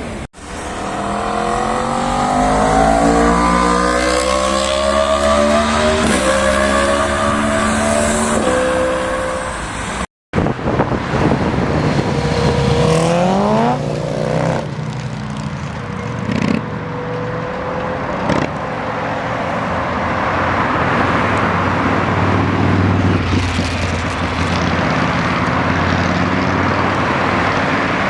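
Sport motorcycles with loud exhausts accelerating hard: the engine note climbs and drops back at each upshift. After a short cut about ten seconds in, another bike revs up sharply and runs on.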